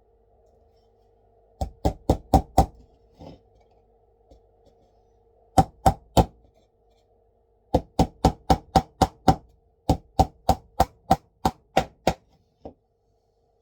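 Pin hammer tapping a wooden DN4 beehive frame together: five quick taps, then three more, then a longer run of about fifteen at roughly three a second.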